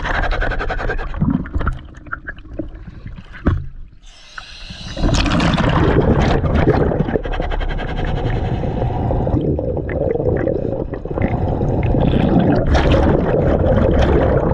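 Scuba diver breathing underwater through a regulator: a short hiss of inhaled air about four seconds in, then a long, continuous rush of exhaled bubbles.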